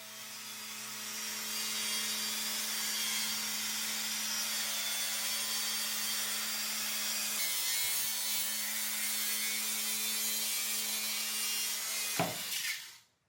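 Table saw running and cutting wood: a steady rasping noise over a constant motor hum, growing louder over the first two seconds and cut off abruptly near the end.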